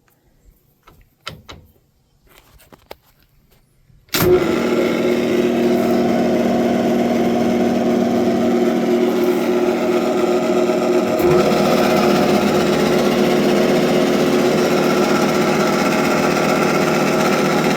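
A few quiet clicks as the gear levers are set, then a Clausing Colchester metal lathe switched on with a sharp clunk about four seconds in and running steadily at its slowest spindle speed, with an even gear hum and whine.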